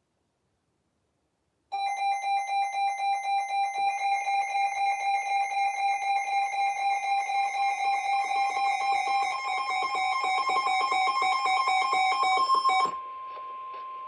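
Emergency alert attention tone heralding a snow squall warning: a loud electronic alarm tone that pulses several times a second, starting about two seconds in, over a steady higher tone. The pulsing stops about a second before the end and the steady tone carries on alone, quieter.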